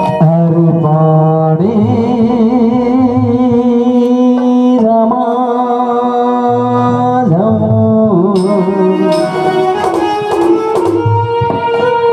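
Live Chhattisgarhi folk band playing a loud instrumental passage: a keyboard melody of held, wavering notes over hand-drum strokes, with the drumming busier in the second half.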